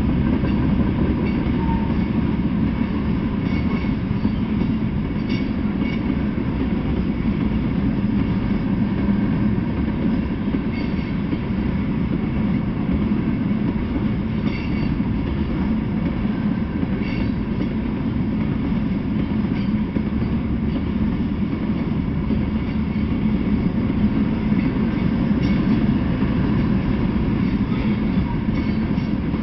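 Freight train of covered hopper cars rolling past: a steady rumble of steel wheels on the rails, with faint clacks now and then.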